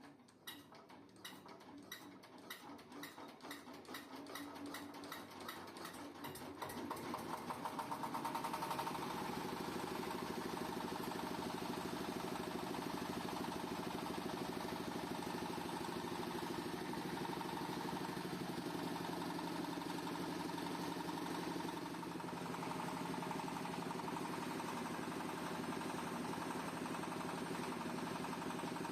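Compost shredder starting up: a regular clicking speeds up and grows louder over about eight seconds as the machine comes up to speed, then it runs steadily with an even hum.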